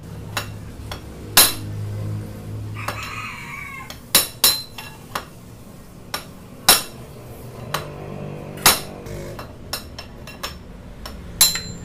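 Hammer striking a metal pipe used as a drift to knock the old upper steering-head bearing race out of a scooter's steering head: about a dozen sharp metallic clanks with a short ringing tail, unevenly spaced.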